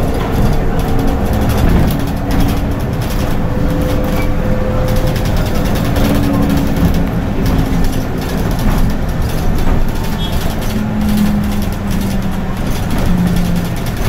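BYD electric bus driving, heard from the cabin: steady road and tyre noise with rattles from the body, and a low hum that holds one pitch for a few seconds at a time and then shifts.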